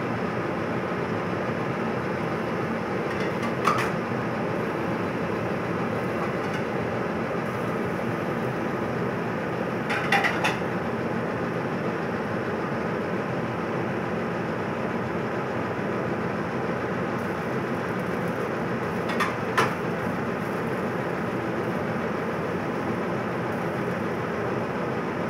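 Countertop rotisserie oven running with its chicken turning on the spit, a steady mechanical whir. A few short clicks come through, around 4 s, 10 s, and twice near 19–20 s.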